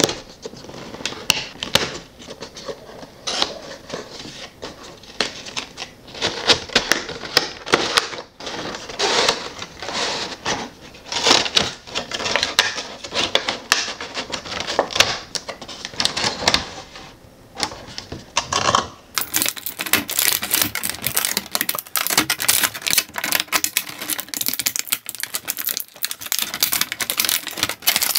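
Hands unpacking an action figure from its cardboard window box: rustling cardboard and rapid clicks of tape and flaps being worked open. About two-thirds through, this turns into denser, brighter crackling of clear plastic packaging as the figure is pulled free.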